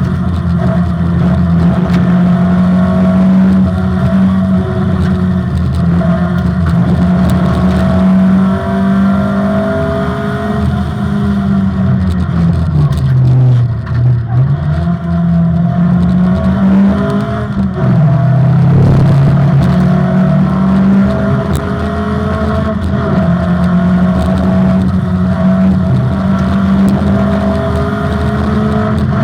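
Opel Manta rally car's engine running hard at stage pace. Its pitch mostly holds steady, drops as the car slows about halfway through, then climbs back as it accelerates again.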